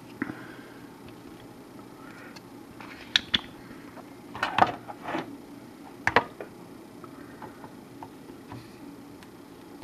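Tenma desoldering iron worked on circuit-board solder joints: a few sharp clicks, then louder clacks in a cluster about four and a half seconds in and again at about six seconds, over a steady low hum.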